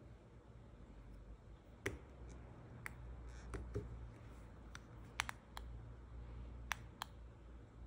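Light, sharp clicks and taps of hard artificial nail tips and small nail tools, about ten of them at irregular intervals, over a faint low hum.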